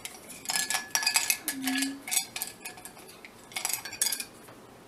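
Wooden prompt sticks rattling and clinking against the inside of a ceramic mug as a hand stirs them and draws one out, in two spells of clatter, the first longer.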